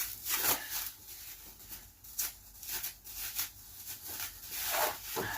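Disposable gloves being tugged and peeled off the hands after fibreglass filler work: irregular rustling and crinkling handling noises.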